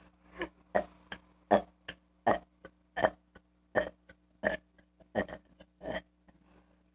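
A kid burping deliberately, over and over: about nine short burps in a row, roughly one every three-quarters of a second.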